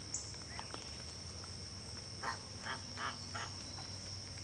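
Four short honks from geese in quick succession about halfway through, over a steady high-pitched insect chirring.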